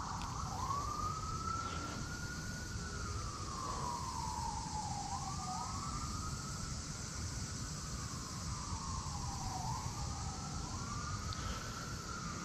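An emergency-vehicle siren wailing, three slow cycles that each rise quickly in pitch and then fall away over about four seconds.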